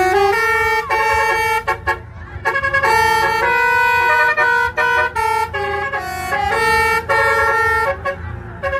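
A basuri (telolet) musical vehicle horn playing a tune: a string of loud held notes that step up and down in pitch, with short breaks between them, over a low rumble.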